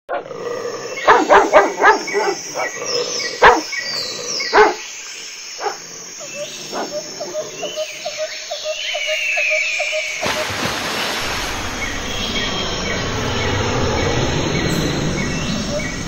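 Loud, short animal calls several times in the first five seconds, then a run of quick repeated notes. About ten seconds in, the sound cuts abruptly to a steady rushing noise with faint high bird-like chirps over it.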